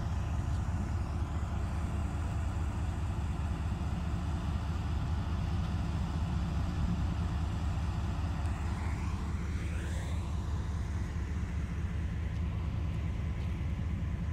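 Chinese-built ZCU diesel-electric locomotive hauling an express train past at speed, its engine and the train giving a steady low rumble. About nine to ten seconds in, a sweeping whoosh passes through the upper part of the sound as the train comes close.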